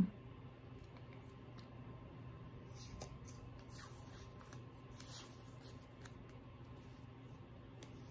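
Faint crackles and rustles of washi tape being peeled off its roll and laid onto planner paper, a few scattered ticks over a low steady hum.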